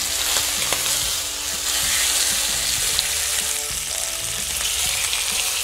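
Tied stuffed pork loin sizzling steadily in hot oil in a frying pan as it is seared over high heat.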